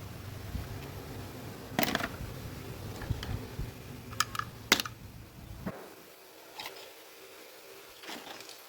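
A small electric motor hums steadily and cuts off suddenly about six seconds in, with several sharp clicks and taps of small parts being handled.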